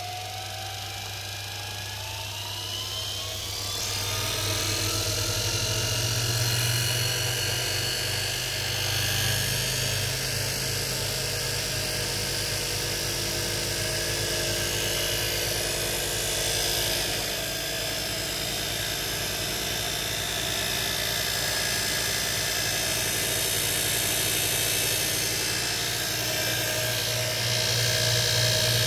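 Jawa/ČZ motorcycle dynamo turning on a motor-driven test stand. A whine rises in pitch over the first few seconds as the rig speeds up, then runs steadily over a low hum.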